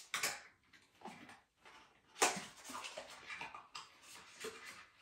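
Cardboard packaging of an essential-oil cartridge being opened and handled: irregular rustles and scrapes, the loudest a little over two seconds in.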